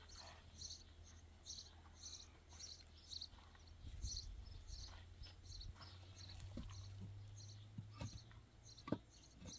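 Faint high chirping repeating about twice a second, over a low steady hum, with two soft knocks near the end.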